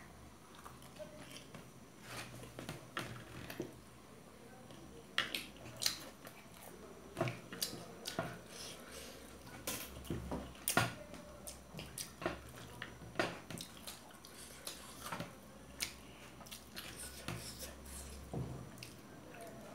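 Two people chewing fried momos, with forks clicking and scraping against metal plates in short, irregular clicks.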